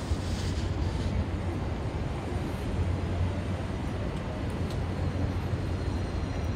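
Steady low rumble of city background noise, like street traffic, with no distinct single event standing out.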